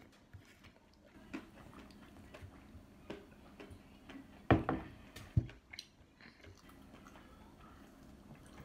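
Small clicks and taps of a meal at a table, with a fork on a plate and chewing. Near the middle, two sharp knocks about a second apart come as a drinking glass is set down on the wooden table.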